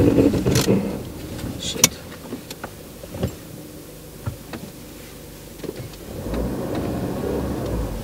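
Car engine and tyres rumbling inside the cabin as the car crawls along a rutted dirt road, with scattered knocks and rattles as it jolts over the ruts. The rumble is louder near the start, eases off in the middle, and rises again about six seconds in.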